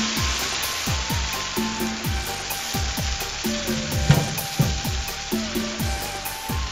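Bánh xèo batter sizzling in hot oil in a wide aluminium wok, a steady frying hiss. Background music with a repeating bass-drum beat runs under it, and there is a single knock about four seconds in.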